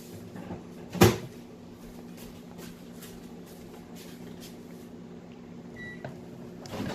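A door bangs shut once, loudly, about a second in, over a steady low hum. A short high electronic beep sounds near the end.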